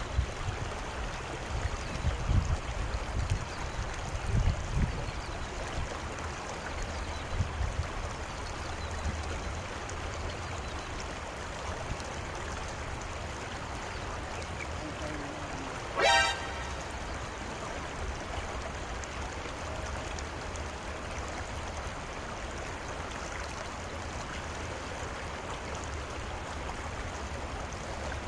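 Steady rush of flowing river water, with low rumbles in the first few seconds. About halfway through comes a single short, rising toot with a bright ringing edge.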